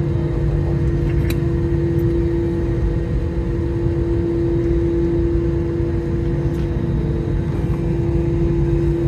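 Steady drone inside an Airbus A321 cabin: a constant low rumble with an unchanging hum, even throughout.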